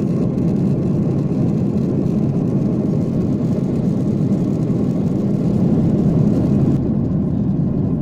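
Steady cabin noise of a Boeing 737 airliner in flight, seen from a window seat over the wing: a low rumble of jet engines and rushing air. The high hiss drops away abruptly about seven seconds in.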